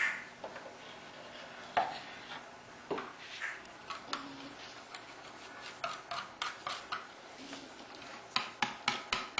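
A plastic dough scraper cutting excess shortcrust pastry along the rim of a metal baking tray: scattered scrapes and taps, with a quick run of sharper taps near the end.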